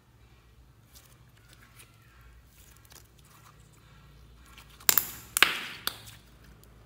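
Hands squeezing fluffy white slime, with faint crackling for the first few seconds. About five seconds in, three loud squishing pops come in quick succession as the slime is pushed down into a bowl of other slimes.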